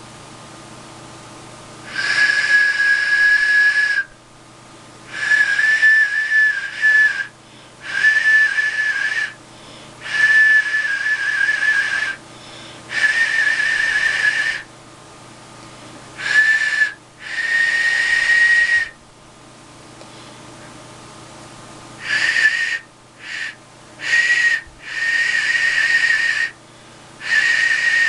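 Freshly modelled clay duck whistle being blown in about a dozen short test blows, each a single breathy high tone, some wavering, with short pauses between. The whistle is being voiced: the maker tries it while shaping the windway to get a good clear tone, and the pitch sits slightly higher in the later blows.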